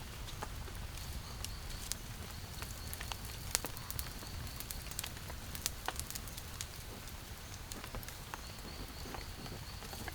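Rain falling in the rainforest: many irregular drop clicks over a steady wash of noise with a low rumble underneath.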